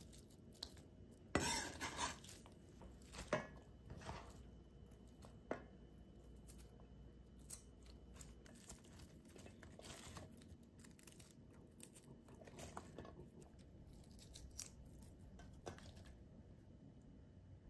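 Quiet kitchen handling sounds: a knife slicing onion on a wooden cutting board at first, then sliced onion being moved about in stainless steel bowls, with scattered light taps, clinks and rustles. The loudest is a sharp knock about a second and a half in.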